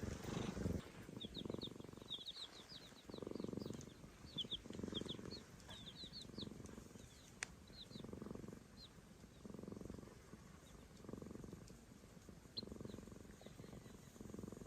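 A cat purring softly in slow swells, about one every second and a half, each in-and-out breath. Chicks peep in short, high chirps through the first half, with a single peep later on.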